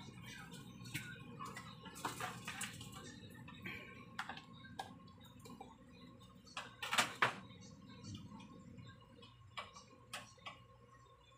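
Scattered light clicks and taps of hands working with small parts and wires, loudest in a cluster about two seconds in and a sharp pair around seven seconds, over a faint steady hum.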